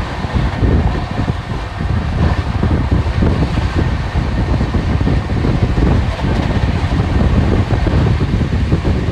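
Passenger train running along the track, heard from inside a sleeper coach: a loud, steady rushing rumble.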